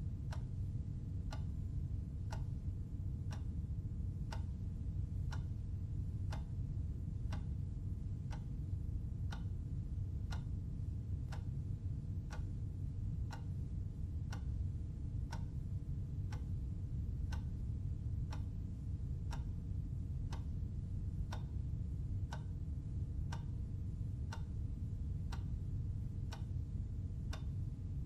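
Clock ticking steadily, one tick a second, over a steady low background hum.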